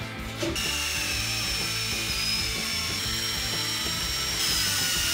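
DeWalt cordless drill running under load into a plywood panel, a steady motor whine that dips slightly about two seconds in and picks up near the end.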